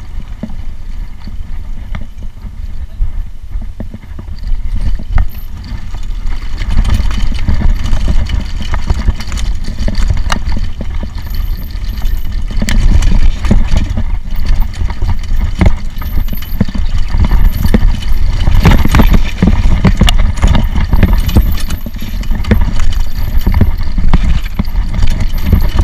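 Mountain bike descending a rough dirt trail: wind rushing over the handlebar camera's microphone, with the bike rattling and knocking over bumps. It gets louder about six seconds in as the speed picks up.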